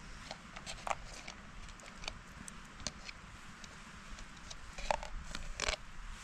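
Campfire crackling with irregular small pops over a low hiss, and a couple of louder knocks about five seconds in.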